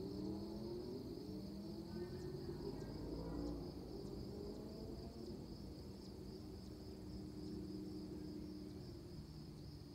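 Steady chorus of crickets, a continuous high pulsing trill, over a low wavering drone.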